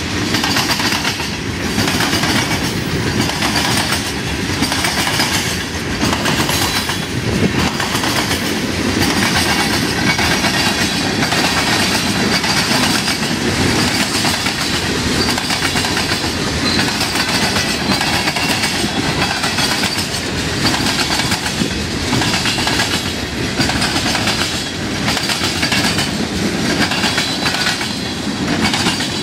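Freight train cars (tank cars, covered hoppers, boxcars and flatcars) rolling past close by: a steady loud rumble and rattle, with repeated clacks as the wheels pass over rail joints.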